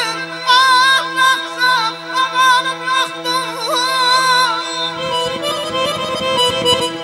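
Harmonica playing a wavering, ornamented folk melody over a steady held low note; about five seconds in, a button accordion takes over with quicker, busier playing.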